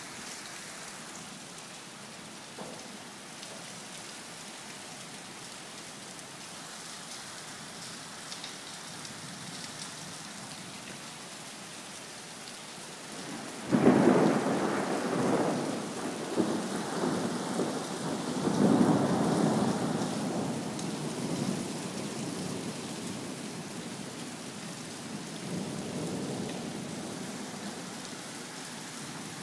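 Steady rain falling, then about halfway through a sudden loud thunderclap that rumbles on for several seconds. The rumble swells again a few seconds later before slowly dying away into the rain.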